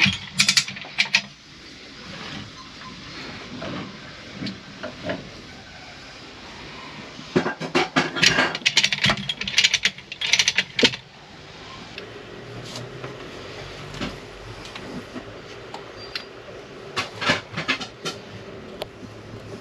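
Metal hand tools and engine fittings clinking and clattering in three bursts of sharp knocks: at the start, through the middle, and near the end.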